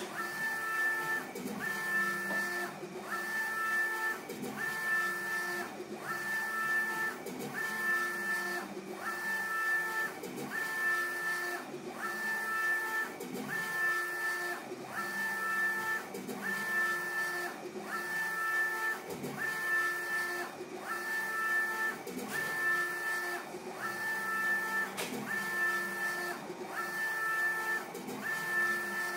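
Apache flatbed UV printer printing, its print carriage sweeping back and forth across the bed about once a second. Each pass brings a steady two-tone motor whine, with a short break at every turn.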